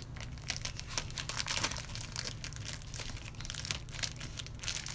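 Toy packaging crinkling and tearing as it is opened by hand, with irregular crackles throughout.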